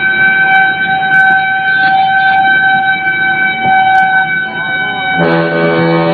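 Fire engine warning horns held long and steady: a high-pitched steady tone, joined about five seconds in by a much deeper air horn blast.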